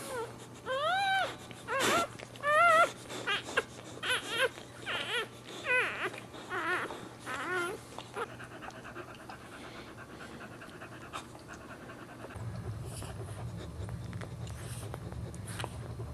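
Newborn Boxer puppy crying in a run of short, high-pitched squeals that rise and fall, while its mother licks it clean of the birth sac just after birth. The cries die away about eight seconds in, and a low steady hum comes in later.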